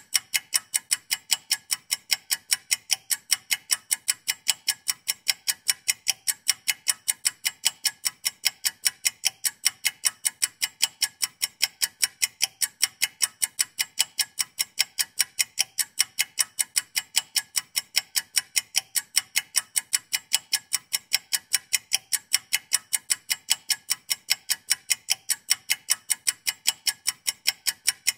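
Countdown-timer clock ticking: fast, sharp, perfectly even ticks that run on without a break while the timed puzzle clock counts down.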